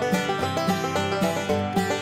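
Background music with a steady beat, a fast run of plucked-sounding notes over a low bass line.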